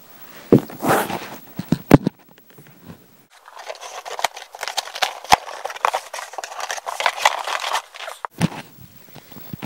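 A cardboard shipping box being opened by hand. A few sharp knocks and bumps come first, then about five seconds of crackly tearing and rustling, then more knocks near the end.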